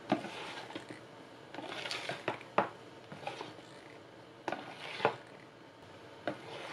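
Wire balloon whisk stirring whipped egg whites into a thick egg-yolk batter in a plastic bowl: faint swishing strokes through the batter with scattered light clicks of the wires against the bowl.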